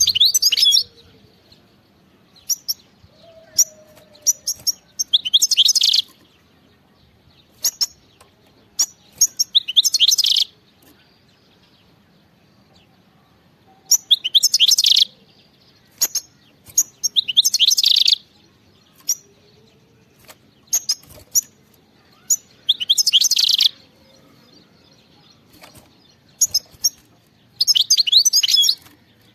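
European goldfinch singing: about seven twittering bursts of roughly a second each, high and rapid, every few seconds, with short sharp call notes in between.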